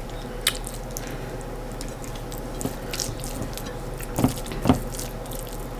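Someone chewing corn fufu with stewed chicken: a few scattered wet mouth clicks and smacks over a steady background hum.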